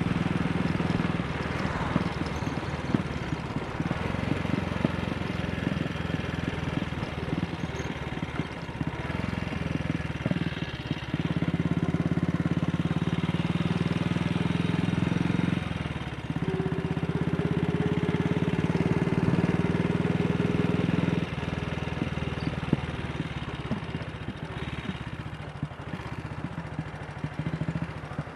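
AJS Model 8 single-cylinder four-stroke engine running under way, its steady note stepping up and down a few times as the engine speed changes.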